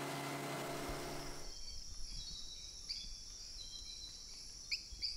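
Motorboat engine running with the rush of water along the hull, cut off abruptly about a second and a half in. Then rainforest ambience: steady high-pitched insect trilling with a few short bird chirps, two close together near the end.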